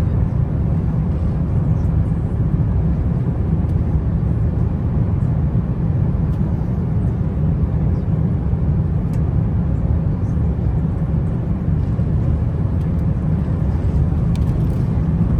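Steady low rumble of an Airbus A350 airliner in flight, engine and airflow noise as heard inside the cabin, even throughout with no changes.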